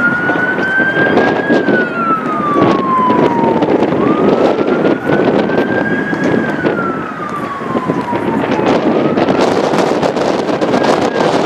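An emergency vehicle's siren wailing in slow cycles, each one rising and then falling over about four seconds, over a steady noisy background.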